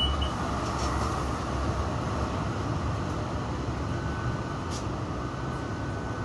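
Inside a Melbourne B2-class tram running between stops: a steady rumble of wheels on rails and running gear. A faint steady whine joins about four seconds in.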